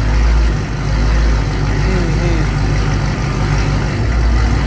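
A 2013 Camaro ZL1's supercharged 6.2-litre V8 idling with a loud, low rumble through an exhaust fitted with dual X-pipes.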